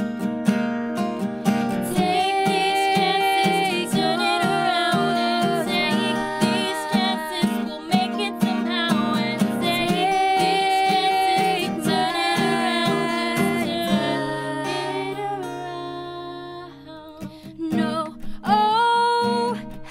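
Two acoustic guitars strumming chords under female vocals singing the melody. About three quarters of the way through, a held chord rings out and fades. Strumming and singing pick up again near the end.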